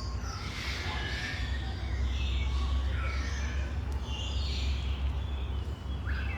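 Birds calling in short, repeated sloping calls over a steady low rumble.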